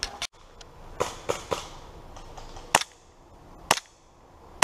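Airsoft pistol firing single shots, sharp snaps about a second apart, the loudest three in the second half, with a few weaker snaps in the first second and a half.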